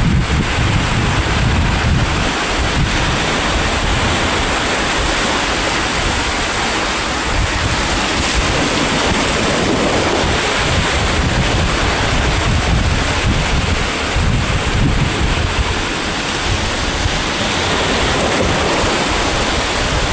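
Sea waves washing in steadily, swelling a little near the middle, with wind buffeting the microphone in a low rumble.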